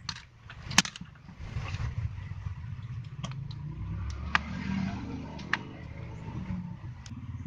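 Sharp plastic clicks and light scraping from a flip phone's plastic casing being handled and pried apart with a plastic card, a handful of separate clicks over several seconds, with a steady low rumble in the background.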